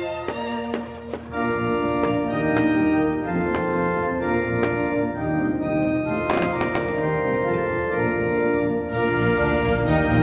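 Instrumental music of sustained, held chords with an organ-like sound, with a couple of short sharp ticks a little past the middle.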